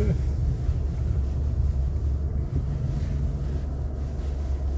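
Low, steady rumble of a Ford Maverick pickup rolling slowly over a gravel lane, heard from inside the cab: engine and tyre noise, with wind buffeting the microphone.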